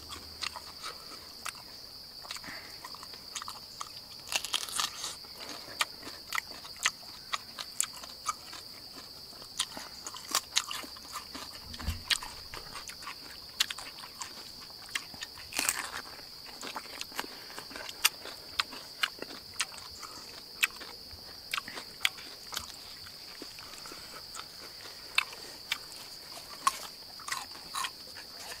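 Close-up eating sounds of cooked snake meat being bitten and chewed: many short crunches and mouth smacks, irregular and spread through the whole stretch. Under them runs a steady high-pitched insect drone.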